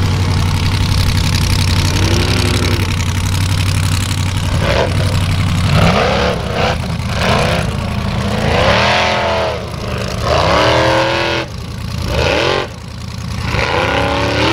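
Formula Offroad buggy's engine running steadily at low revs, then from about five seconds in revved hard again and again, each rev sweeping up and dropping back, as the buggy claws up a steep dirt slope.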